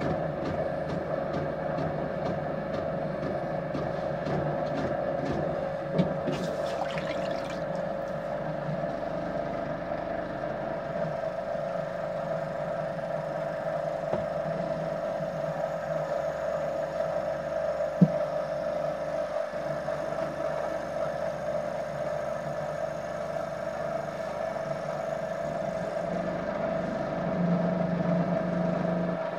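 Potter's wheel motor humming steadily, with a light knock about six seconds in and a sharper one about eighteen seconds in. The hum grows a little louder near the end.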